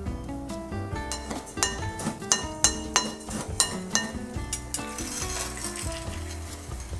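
A metal spoon clinking and scraping against a glass bowl as it stirs a dry mix of coarse sea salt and cane sugar, with a run of sharp clinks in the middle, over background music.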